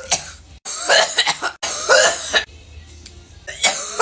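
A person coughing hard: a run of harsh coughs in quick succession, a short lull a little past halfway, then another cough near the end.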